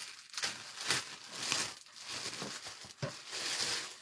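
Packaging rustling and crinkling as a bag is pulled out of a package and unwrapped, in several bursts of handling noise, the longest near the end.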